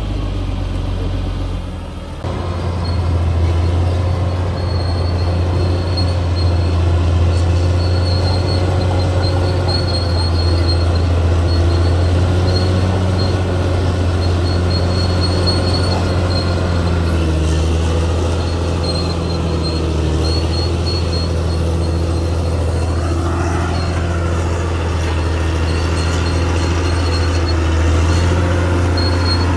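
Caterpillar D6R XL bulldozer's diesel engine running steadily as the dozer works, with a brief drop about two seconds in and a short whine that rises and falls near the end.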